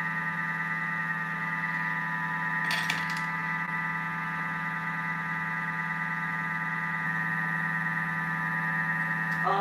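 Thermomix motor running steadily at whipping speed with the whisk fitted, beating gelatin and honey into fluffy marshmallow: an even motor whine. A brief click comes about three seconds in.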